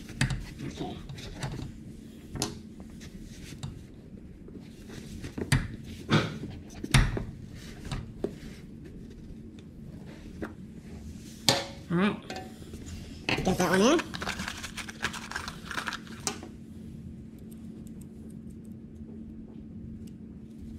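Hog ring pliers crimping metal hog rings through a seat cover around the seat frame's metal bar: irregular metallic clicks and clinks with handling of the cover, loudest in a cluster a little past the middle. A faint steady hum runs underneath from about two seconds in.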